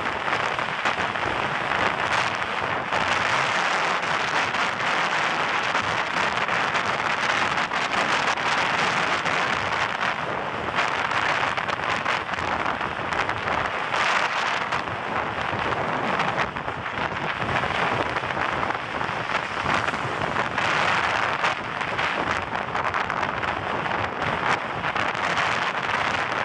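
Steady rushing, crackling noise of riding a bicycle along a paved road: wind and road noise on the bike-mounted camera's microphone, with no let-up.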